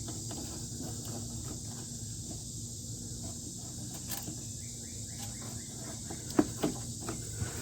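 Steady high-pitched outdoor insect drone, with a few faint clicks in the second half as a wiring connector at the wheel hub's speed sensor is worked loose.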